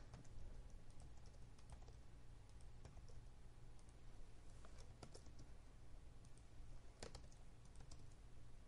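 Faint, scattered clicks of a computer mouse and keyboard keys over a low steady hum, the loudest click about seven seconds in.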